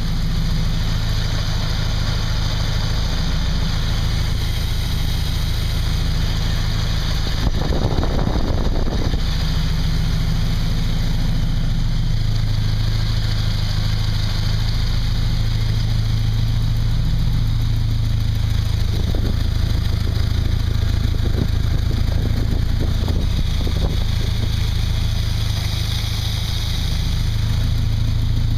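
Chevrolet V8 engine idling steadily, with a brief burst of extra noise about eight seconds in.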